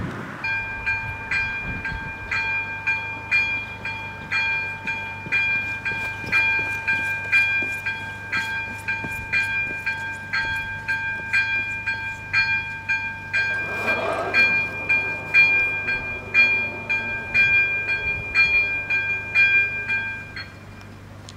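Railway level-crossing warning bell ringing at about two strikes a second, sounding as the barriers come down to warn of an approaching train. It stops about a second before the end, and a brief whoosh cuts across it about two-thirds of the way through.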